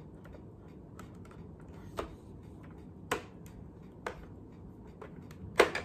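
Plastic clicks and knocks from a Nerf blaster and its collapsible L-shaped shoulder stock being handled and folded. About five sharp clicks roughly a second apart, the loudest near the end.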